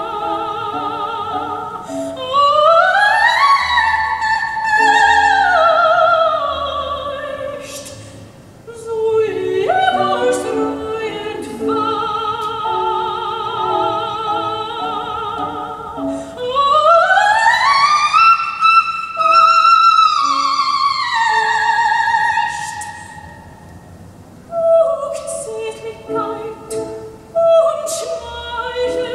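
Recorded operatic singing: a single voice with vibrato, swooping up and down in long pitch glides between phrases. It is played back through a hi-fi system of tube amplifiers and Rogers loudspeakers.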